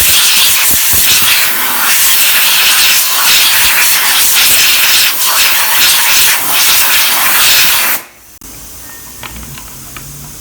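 Compressed-air blow gun hissing loudly as it blasts dust out of a car's heater blower fan. It cuts off suddenly about eight seconds in.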